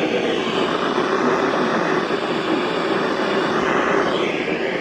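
Steady hiss and static from a weather radio on a weak broadcast signal, with the synthesized voice of a NOAA Weather Radio warning faintly audible under the noise.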